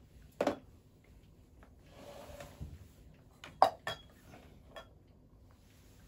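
Ceramic bowls and small dishes clinking against each other as they are picked up and gathered onto a tray. There are a handful of sharp clinks, one leaving a short ring, and a brief rustle about two seconds in.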